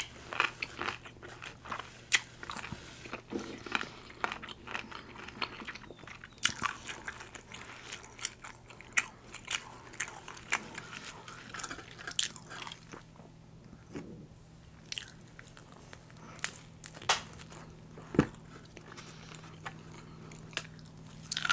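A person chewing a mouthful of pizza close to the microphone: irregular wet mouth clicks and smacks, with a few louder ones scattered through.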